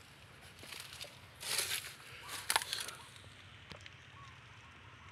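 Two short crunching scuffs, about one and a half and two and a half seconds in, with a sharp click in the second, over a faint low background. No engine is running.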